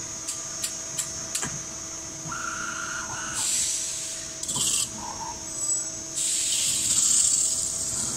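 CNC metal spinning machine running with a steady whine while a 1.2 mm carbon steel pot spins on the mandrel. A few sharp clicks come early, then a short steady tone, then bursts of hissing scrape as the turret tool trims the pot's rim. The loudest burst comes near the end.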